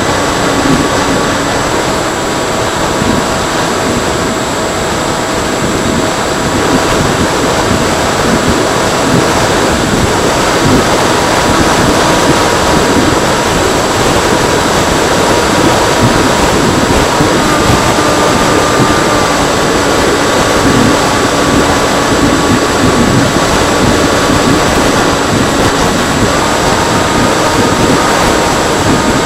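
Electric motor of a Freewing Seagull RC model plane whining in flight under a loud, steady rush of air. The whine steps up and down in pitch a few times as the throttle changes, notably about two-thirds of the way through and again near the end.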